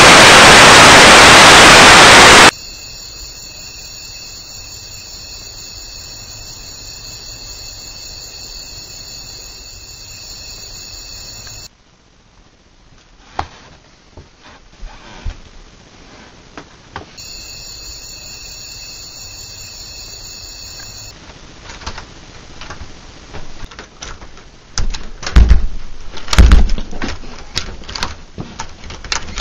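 Untuned television static, a loud even hiss that cuts off suddenly about two and a half seconds in. Then a faint steady hiss, a quieter stretch with scattered clicks, and a run of sharp thumps and knocks that grows louder near the end.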